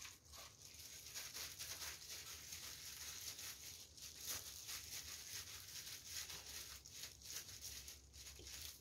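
Faint, irregular rustling and crinkling of thin disposable plastic gloves as hands scoop and press soft mashed kabocha squash dough in a glass bowl.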